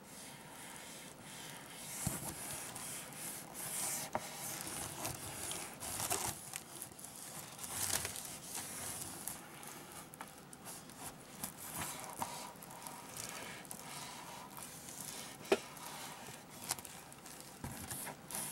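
Small hand iron sliding and pressing laminating film onto a foam airplane: irregular crinkling and scraping of the plastic film over the foam, with one sharper click late on.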